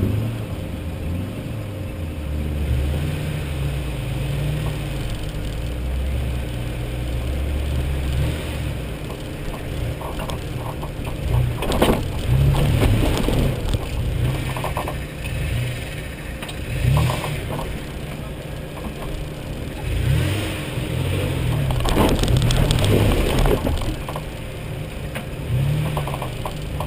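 Four-wheel-drive engine crawling at low revs over rocks, rising and falling with the throttle. In the second half there are several sharp knocks and clunks as the vehicle bumps and scrapes over boulders.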